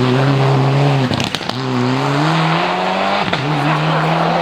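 Rally car engine at high revs accelerating through the gears. The note climbs, cuts out about a second in with a few sharp exhaust pops, comes back lower and climbs again, then drops at a second shift near the end.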